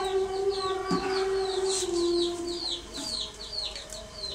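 A bird chirping, a rapid run of short falling high notes about three a second, over a steady low tone that stops about two and a half seconds in.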